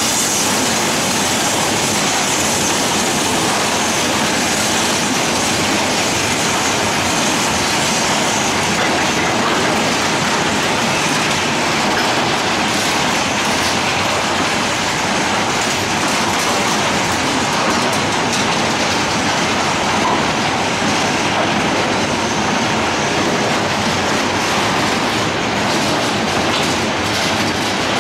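A train running along the track: a loud, steady noise of wheels on rails that holds evenly throughout.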